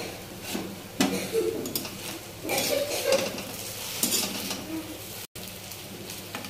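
Metal spatula scraping and clinking against a steel kadhai and a steel plate as sticky sabudana khichdi is scooped out and spread on the plate, in several separate strokes with sharp clicks.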